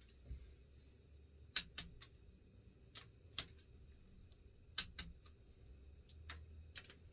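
Faint, sharp clicks from a long torque wrench's ratchet as ARP head bolts on a small-block Ford 302 with GT40P heads are pulled down on the first 35 ft-lb pass. About ten clicks, single or in quick pairs, with pauses between.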